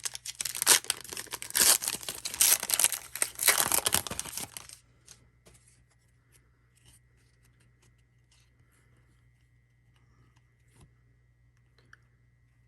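A trading card pack's wrapper being torn open and crinkled, loud and crackling, stopping about five seconds in. After that only faint, scattered light clicks.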